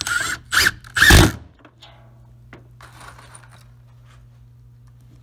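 Cordless power driver driving a 1¼-inch screw through an aluminum waveguide flange in three short bursts in the first second and a half, the last the loudest and longest.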